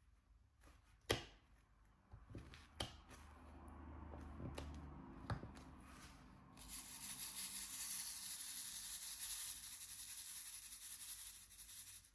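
Diamond painting handling sounds: a few sharp taps and soft rustling, then a steady, dry, high hiss for about the last five seconds.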